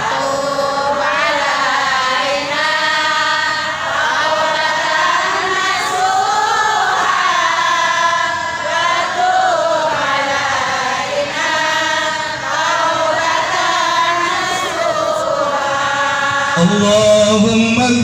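Several voices singing a devotional chant together, in long, wavering held phrases. A lower voice joins about a second and a half before the end.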